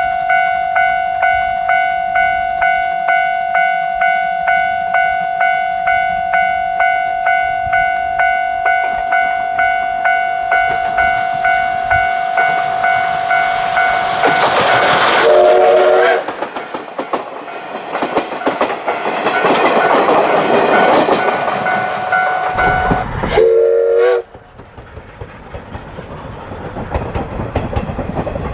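C12 66 steam locomotive sounding its whistle in two short blasts, about 15 and 23 seconds in, over chuffing and rail running noise. Before that, a level-crossing alarm rings steadily, about twice a second.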